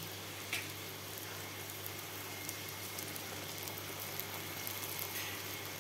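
Arbi-leaf pakoras frying in shallow oil in a wok: a steady, quiet sizzle with faint scattered crackles.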